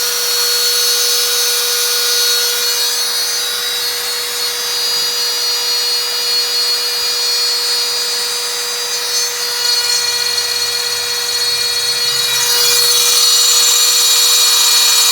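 CNC router spindle running with a steady high whine as its bit cuts aluminium composite panel, with a hissing cutting noise that grows louder about twelve seconds in.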